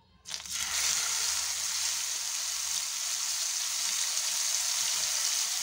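A paste-coated whole fish going into hot coconut oil in a nonstick frying pan, starting to sizzle suddenly just after the start and then frying with a steady hiss.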